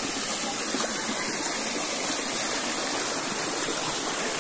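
A small rocky stream spilling down a little cascade, its water rushing steadily over the stones.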